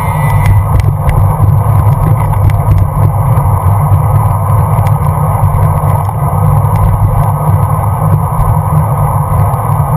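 Wind rushing over a bicycle-mounted GoPro's microphone, with tyre and road noise from the moving bicycle: a loud, steady rumble with a few small clicks.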